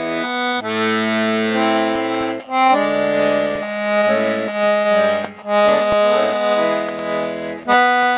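Accordion playing a Swedish song: held chords with a melody over changing bass notes, the phrases separated by brief breaks.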